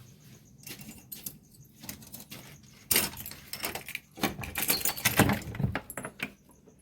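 Small hard objects clinking and rattling as they are handled, starting about three seconds in, with a few dull knocks in the middle.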